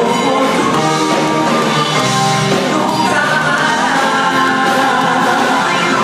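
Male vocal group singing live into handheld microphones over loud accompanying music.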